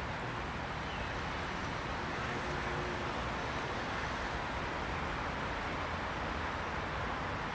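City street ambience: a steady wash of background noise with no single sound standing out.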